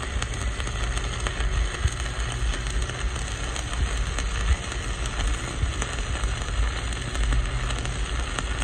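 Stick-welding arc on steel plate, a steady frying crackle with fine pops, over a low steady hum.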